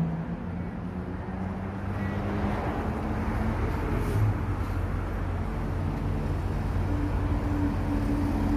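2020 Toyota Camry's engine running steadily, with a steady noise of road or traffic around it.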